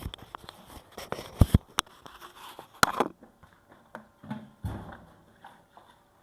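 A series of sharp clicks and knocks from objects being handled, most of them in the first three seconds, followed by a couple of softer, low thumps.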